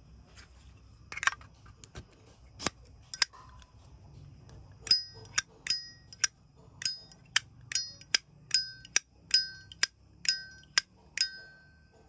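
Brass Zippo lighter lid flicked open and snapped shut, each stroke a sharp metallic click with a bright ringing ping. A few scattered clicks come first, then from about five seconds in a quick run of about two a second: the lid action that collectors listen for.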